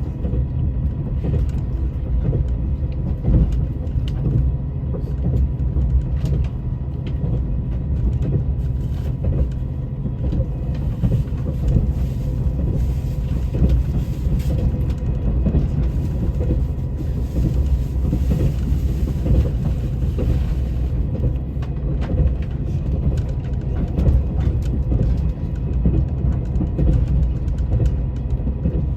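Train running at speed: a steady low rumble with frequent small knocks and rattles from the wheels and carriage.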